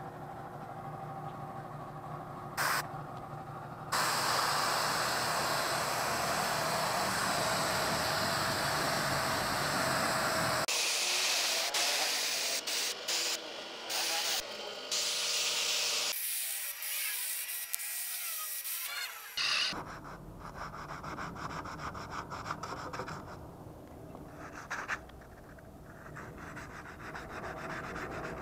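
Compressed-air gravity-feed paint spray gun hissing as it sprays, starting about 4 s in and changing abruptly between sections, thinning to a high hiss near the middle. It gives way to a quieter, rougher scraping noise after about 20 s.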